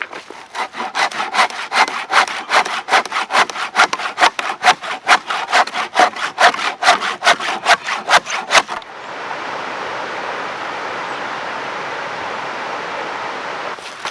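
Saw cutting through wood in quick, regular back-and-forth strokes, about three or four a second, stopping abruptly about nine seconds in. A steady even hiss follows.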